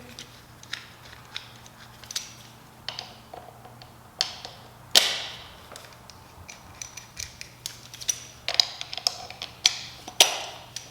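Irregular clicks, scrapes and metal clinks of hand tools working on a small dirt bike's rear axle and chain-tensioner hardware, with one louder ringing metal clank about five seconds in.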